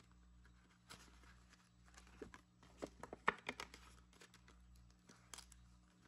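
Soft rustling and crinkling of paper banknotes and a clear plastic binder pocket being handled, with a few light clicks and taps. The loudest comes a little past the middle.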